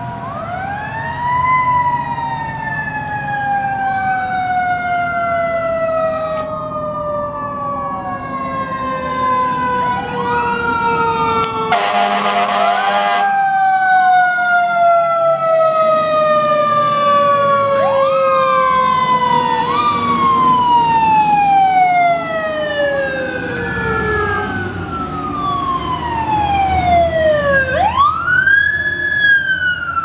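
Several fire engine sirens wailing at once, each rising quickly and falling slowly, out of step with one another, over truck engine rumble. A horn blasts for about a second near the middle.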